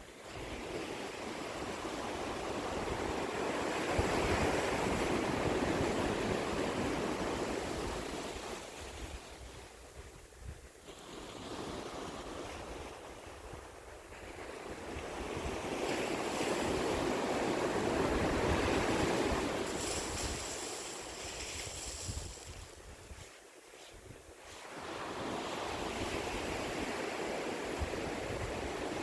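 Ocean waves washing onto the shore, the surf swelling and fading in slow surges, with two big swells and a third building near the end.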